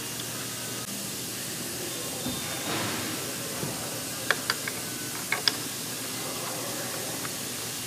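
Steady background hiss with a quick cluster of about five sharp metallic clinks, a hand wrench knocking against a C-130 propeller hub, around four to five and a half seconds in.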